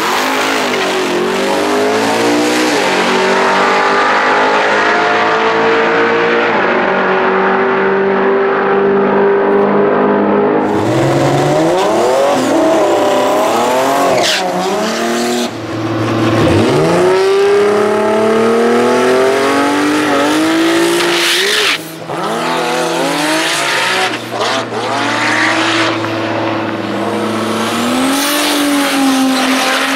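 Drag cars at full throttle. The LS2 V8 Commodore leaves the start line, its note climbing in steps through the gear changes and fading down the strip. After a cut about ten seconds in, more launches follow, including the 2JZ inline-six Honda and the RB30 inline-six Datsun, their revs rising sharply as they pull away.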